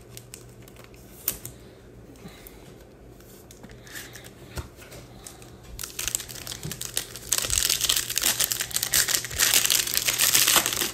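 Foil wrapper of a Topps Chrome baseball card pack crinkling loudly as it is torn open and handled, starting about six seconds in, after a few seconds of faint ticks and card handling.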